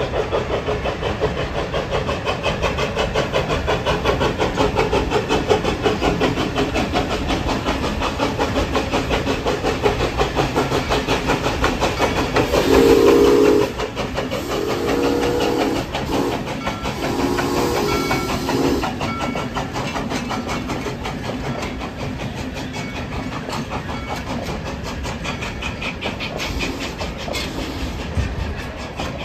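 4-4-0 steam locomotive chuffing steadily as it passes, sounding three long blasts on its steam whistle about halfway through, with a hiss of steam. Its open passenger cars then roll past on the rails.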